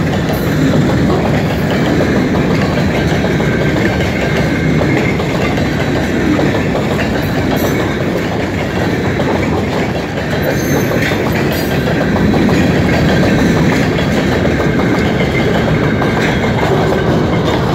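Freight train of covered hopper cars rolling past close by: a steady, loud rumble of steel wheels on the rails. A few sharp clicks come as wheels pass over rail joints.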